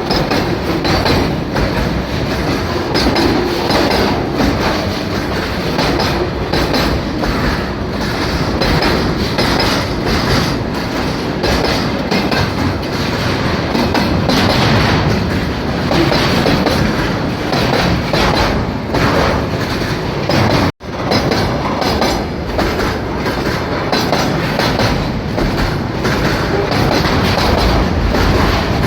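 A long freight train's wagons rolling past, their wheels clattering continuously over the rail joints. The sound cuts out for an instant about two-thirds of the way through.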